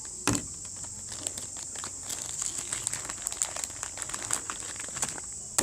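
Packaging crinkling and rustling as items from a parcel are handled, with many small clicks and a sharp knock about a third of a second in.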